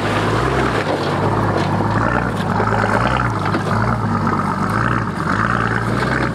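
A vehicle's engine running steadily under way, with a constant noisy rush over it.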